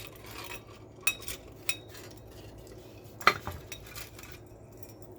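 Metal parts of a set of scales clinking as they are handled: a few light clinks, some ringing briefly, and one louder knock about three seconds in.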